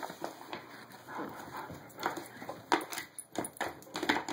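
A large dog working at a wooden treat puzzle board with paw and nose: irregular knocks and clacks of the wooden pieces and claws on the board, with the dog sniffing at it.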